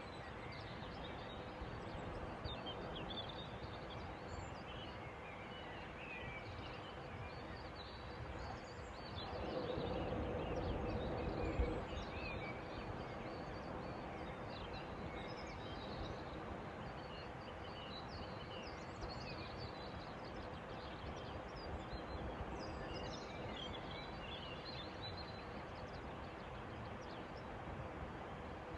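Outdoor evening ambience: small birds chirping and calling over a steady background rush. About ten seconds in, the rush swells louder for a couple of seconds and ends in a sharp click.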